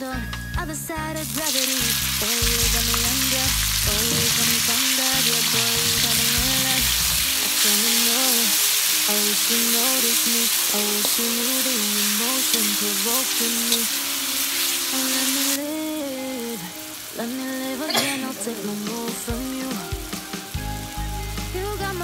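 Beef sizzling loudly in hot oil in a metal wok, starting suddenly about a second in as the meat goes into the oil, and stirred with a metal spatula. The sizzle drops off sharply about two-thirds of the way through, leaving a softer frying.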